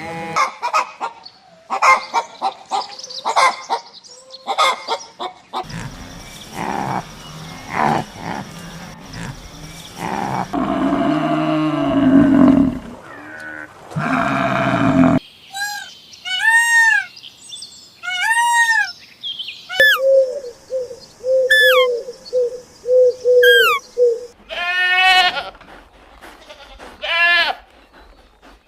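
Farm animals calling one after another, with bleats among them: long pitched calls in the first half, then a run of short arched chirping calls with a row of short lower notes, and another pitched call near the end.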